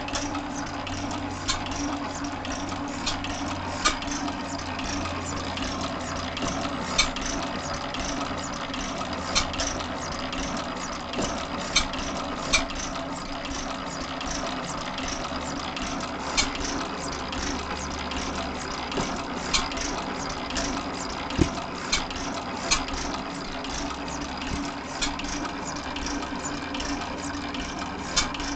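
1911 Gardner No. 1 stationary engine running steadily, a constant mechanical hum broken by sharp clicks at irregular intervals of about one to three seconds.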